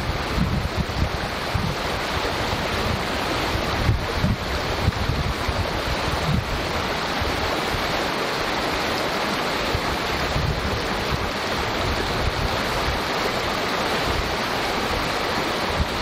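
Small creek rushing and babbling steadily over its bed, an even water noise. Uneven low rumbles come through under it and die down around the middle.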